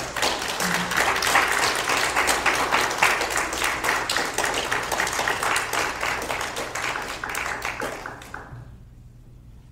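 Audience applauding: dense clapping that gradually thins out and dies away about eight and a half seconds in.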